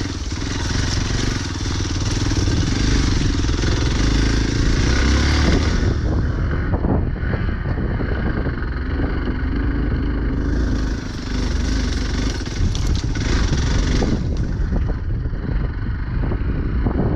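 Motorcycle engine running while the bike is ridden along a rough trail, its note rising and falling, with a rushing noise over it that drops away for a few seconds midway.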